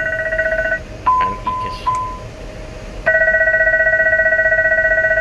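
Embraer E190 cockpit aural fire warning triggered by the fire-detection test: a loud, rapidly pulsing alarm of several pitches sounds until just under a second in. Three short beeps follow, then the pulsing alarm starts again about three seconds in.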